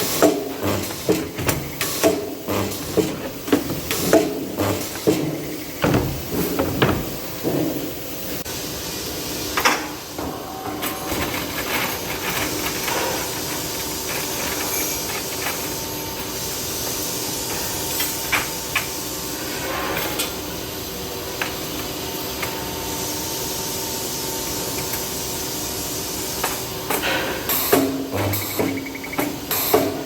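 Metalworking machinery at a press and spot-welding station: a run of repeated metallic knocks and clunks, then a steady hiss and hum with scattered clicks. The knocking picks up again near the end.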